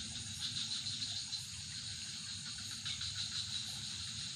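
Night insects, crickets among them, chirring in a steady high-pitched chorus with a faint pulsing shimmer.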